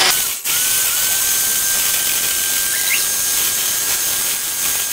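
Electric hand mixer running steadily, its beaters whipping powdered whipped-cream mix and milk in a tall plastic beaker. It cuts out for an instant about half a second in, then runs on with a steady high whine.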